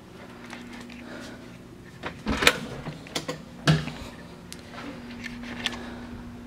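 Scattered clicks and knocks, the two loudest about two and a half and three and a half seconds in, over a steady low hum in a small room.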